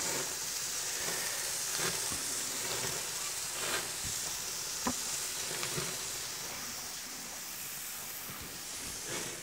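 Food sizzling on a gas grill: a beef patty on the hot grate and red onions cooking down in red wine in a cast-iron pan. A steady hiss with a few faint clicks.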